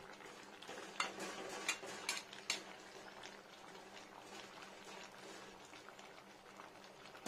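Flat metal spatula (khunti) scraping and knocking against a metal kadai while stirring an arum-and-pumpkin curry, a handful of sharp clacks in the first few seconds. A faint, steady bubbling of the thick curry simmering continues underneath after the stirring stops.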